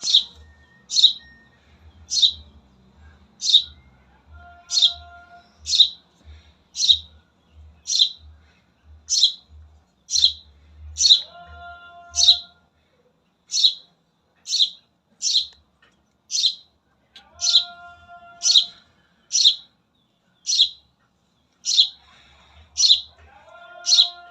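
A bird chirping over and over: short, high chirps, about one and a half a second. Every six seconds or so a lower, steady call of about a second joins in.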